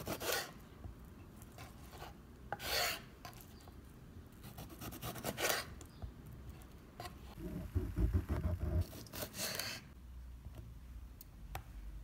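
Kitchen knife slicing through a cucumber onto a wooden cutting board: a crisp rasping cut every two to three seconds, about four in all. A low bumping sound comes about eight seconds in.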